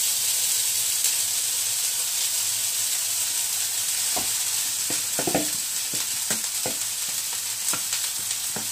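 Oil sizzling steadily in a nonstick wok as cooked basmati rice is tipped in from a bowl onto frying peas and green chilies. A few short, light knocks come from about four seconds in.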